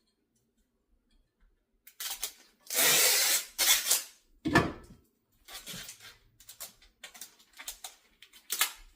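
Duct tape being pulled off the roll in long noisy strips and pressed and rubbed onto the box fan and filter frame. A dull thump about four and a half seconds in, then smaller rubbing and handling noises.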